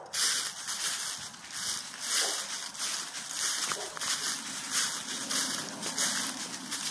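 Footsteps crunching through dry fallen leaves at a steady walking pace, about two steps a second.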